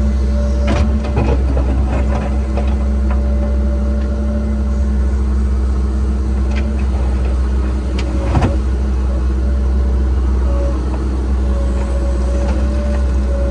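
Cat 306 excavator's diesel engine running steadily under work, with a few scattered knocks and scrapes from the bucket digging in rocky ground; the loudest knock comes about eight seconds in.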